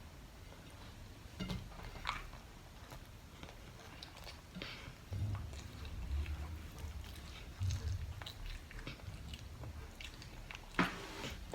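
Quiet sounds of a toddler eating: chewing, with scattered light clicks and taps, and two louder short noises near the end.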